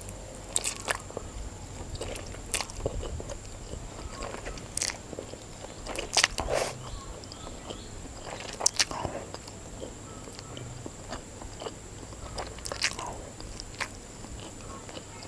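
Close-miked eating of instant noodles: chewing with irregular sharp crunches and mouth clicks, some from the crispy topping.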